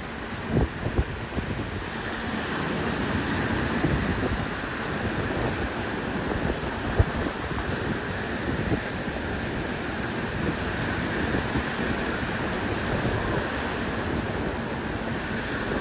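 Ocean surf breaking and washing up a sandy beach, a steady rush of noise. Wind gusts buffet the microphone, with a few sharp knocks near the start and once about halfway through.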